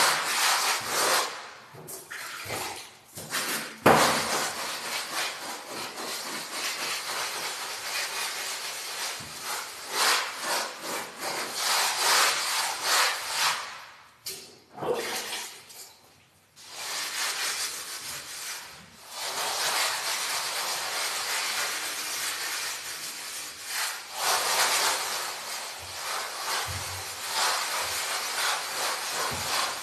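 Hand float being rubbed in repeated scraping strokes over a wall coated with fine finishing plaster, with a sharp knock about four seconds in and two brief pauses near the middle.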